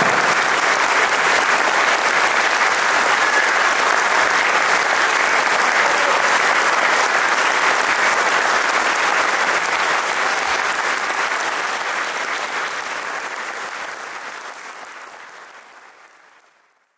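Audience applauding steadily, then fading out over the last six seconds or so.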